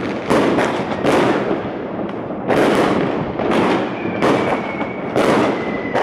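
Aerial firework shells bursting in quick succession, a sharp bang about every half second with short gaps. A thin, steady high whistle runs through the last two seconds or so.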